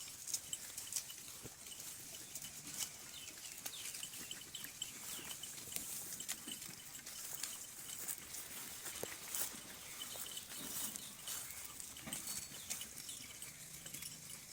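Faint sounds of a goat herd at close range: many small scattered clicks and rustles, with a faint, steady, dotted chirping above them.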